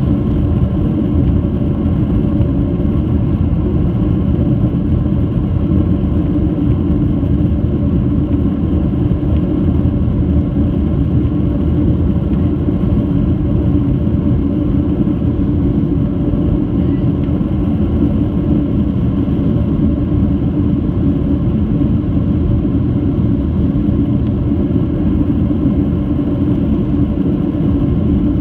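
Boeing 737-800 cabin noise: the aircraft's CFM56-7B turbofans giving a loud, steady rumble heard from inside the passenger cabin, with a few faint steady tones over it.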